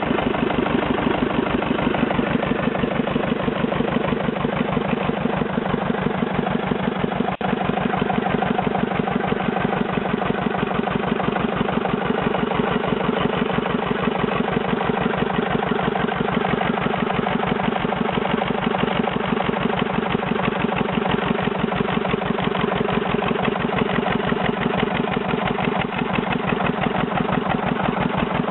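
Petter AVA2 air-cooled two-cylinder diesel engine running steadily with a fast, even beat, on its first run after restoration.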